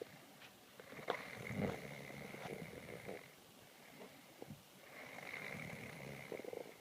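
A sleeping person snoring: two long, rattling snores, one about a second in and another near the end.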